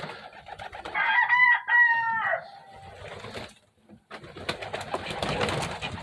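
A baby pigeon (squab) gives one high, drawn-out squeal about a second in, lasting over a second. Near the end comes a stretch of rustling as the squab is handled in its nest bowl.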